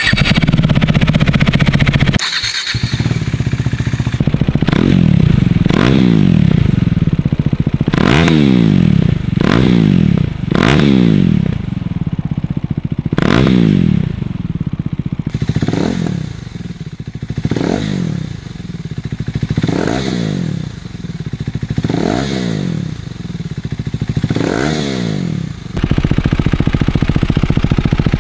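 373 cc single-cylinder motorcycle engine through an aftermarket LeoVince exhaust, blipped on the throttle again and again, each rev rising and falling in pitch about every two seconds. Near the end it settles into a steady run.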